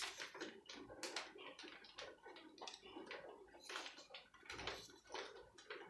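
Faint, irregular clicks and taps of a plastic flip-up mobile phone being handled.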